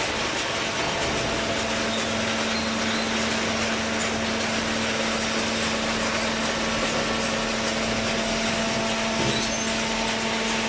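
Hydraulic cardboard baler running: its motor and hydraulic pump give a steady machine noise with a constant hum.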